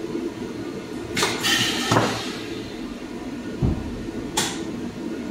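High-frequency blister welding and cutting machine cycling over a steady hum: a long hiss of air about a second in, a clunk near two seconds, then a low thud and a short sharp hiss near four seconds.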